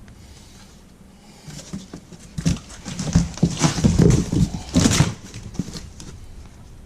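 Handling noise as a boxed replica fish mount is worked out of its packaging: irregular rustling, scraping and knocks. The noise is densest and loudest from about two and a half to five seconds in, then tails off.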